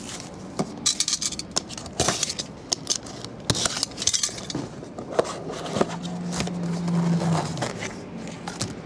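Loose plastic shrink-wrap crinkling and a cardboard trading-card box being handled and opened, with scattered clicks and scrapes as cards in hard plastic holders are pulled out. A low steady hum runs for about two seconds past the middle.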